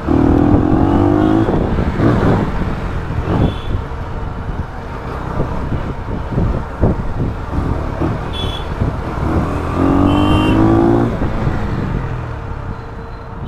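A motorcycle engine running and revving, its pitch rising near the start and again about ten seconds in, amid road traffic noise and scattered short knocks.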